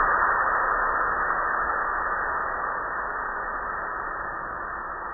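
Automatic car wash spraying water, a steady hiss of spray that slowly fades.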